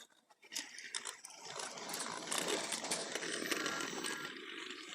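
Small battery-powered toy train running along its track, its little motor whirring and rattling with many small clicks; it fades out near the end.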